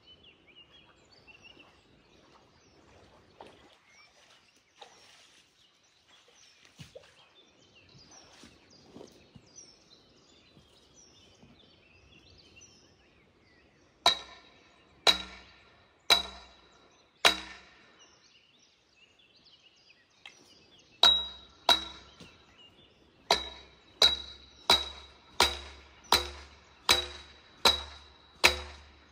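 Sledgehammer striking the top of a steel scaffold tube, driving it into the channel bed, each blow a sharp, ringing clang. First comes a faint stretch with birds chirping. Then four blows about a second apart, a short pause, and a steady run of about a dozen quicker blows.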